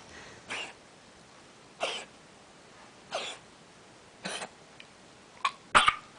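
A dog coughing in a series of six short coughs, roughly one every second or so; the last two come close together near the end and are the loudest.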